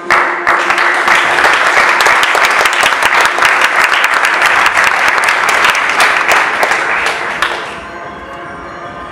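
Audience applause that starts all at once and dies away after about seven and a half seconds, with music playing underneath.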